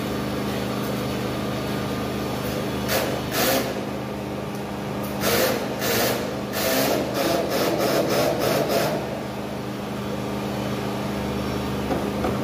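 Power drill run in short bursts, about a dozen times between roughly three and nine seconds in, over a steady low hum.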